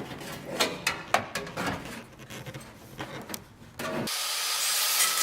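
A sheet-metal body panel being handled and fitted against a car body: irregular knocks and scrapes of metal on metal. About four seconds in, a steady hiss starts suddenly and keeps going.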